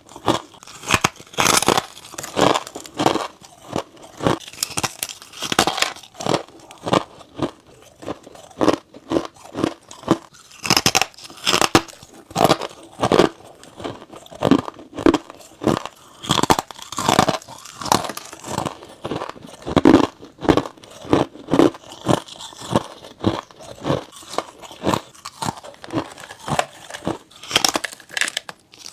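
Close-miked biting and chewing of frozen frost ice: a steady run of sharp, crisp crunches, roughly one or two a second.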